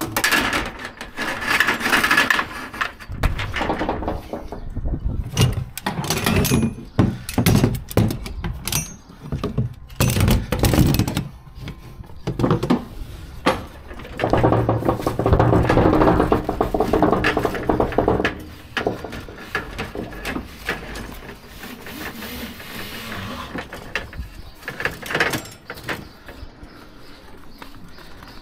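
Ratchet straps being released from a curtainsider trailer's side rail: steel strap hooks knocking and clinking against the rail, and strap webbing rubbing as it is pulled free. A run of sharp knocks in the first half gives way to a longer stretch of rubbing, then quieter handling.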